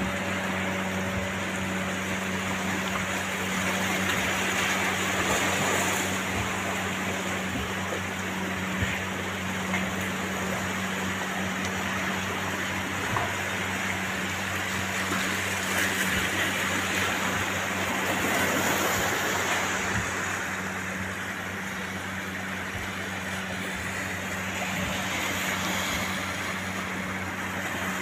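Steady rushing of sea water and wind, with a low steady hum underneath.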